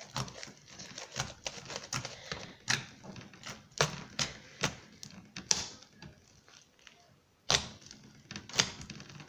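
Slime being poked and pressed, giving irregular sharp clicks and pops, with a short quiet pause about seven seconds in.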